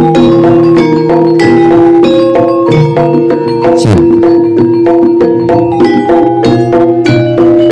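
Loud gamelan music accompanying a jaranan trance dance: struck bronze metallophones and gongs ringing over a steady held note, with regular drum strokes. A low note slides downward about four seconds in.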